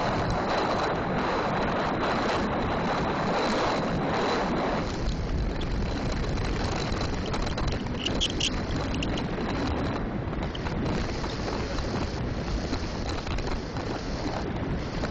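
Wind noise rushing over the microphone of a bicycle-mounted camera during a fast downhill descent. The rushing eases somewhat about five seconds in.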